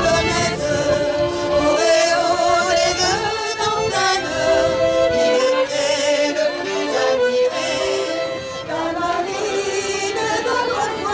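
Traditional folk tune played on a button accordion and a violin, with voices singing along.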